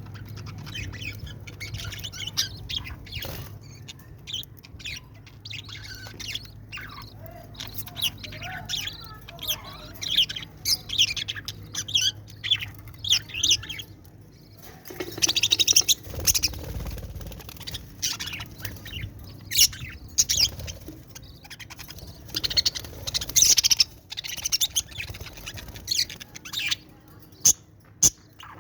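Birds chirping and squawking, with many short, sharp high calls in irregular clusters, loudest around the middle and again near the end.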